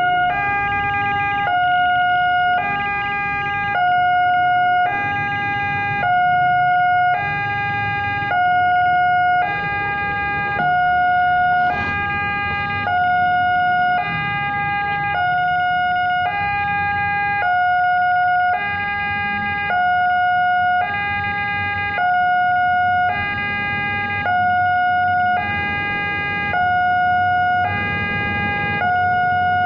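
Automatic railway level-crossing alarm sounding its electronic two-tone warning. It alternates between a higher and a lower tone, each held about a second, signalling that a train is approaching.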